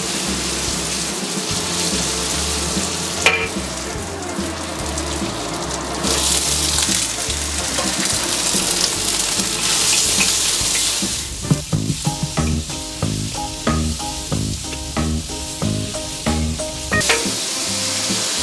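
Food sizzling in hot oil and melted rock sugar in a wok, first scallions, ginger and garlic, then spareribs, while a metal spatula stirs and scrapes against the wok.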